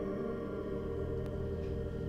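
Dark ambient TV score: several held, ringing tones sustained together, with a low drone swelling in about a second in.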